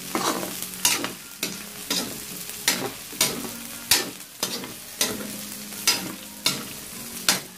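Metal spatula scraping and clacking against a metal wok about every half second as cubes of pork are stirred, over a steady sizzle of the pork frying in its own rendered fat as it browns.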